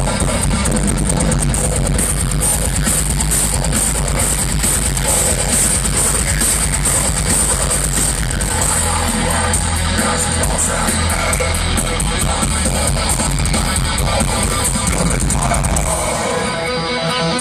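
Heavy metal band playing live, with distorted guitars and drums, in a badly recorded audience recording. About 16 seconds in, the drums and bass drop out and the guitar carries on.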